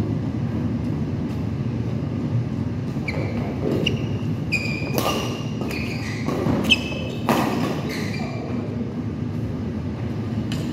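Badminton rally: sneakers squeaking on the court and a few sharp racket smacks on the shuttlecock, bunched in the middle, over a steady low hum of the hall.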